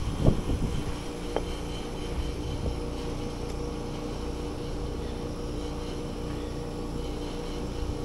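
Trane 17 SEER two-stage outdoor unit running: a steady hum from the compressor and condenser fan, with a light knock from handling the unit near the start.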